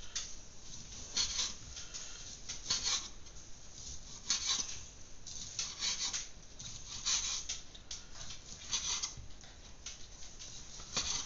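Knife cutting through a farmer sausage, with a series of short rasping strokes at irregular intervals, roughly one a second.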